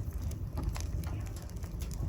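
Wood fire burning in a fireplace: a steady low rumble of flames with scattered small crackles and pops.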